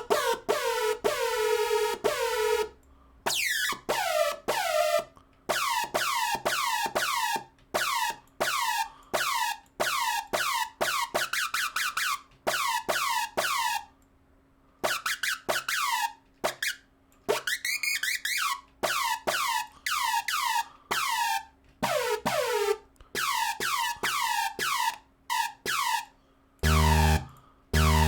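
Short synthesizer notes from the Spire soft synth played one after another, each dropping quickly in pitch, as a new patch is shaped and auditioned. Near the end come two heavier notes with a strong low bass.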